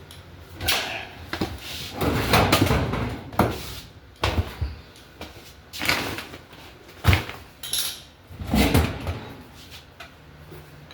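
Assorted objects being rummaged through and handled: irregular rustling and clattering, with several sharp knocks as things are picked up and set down.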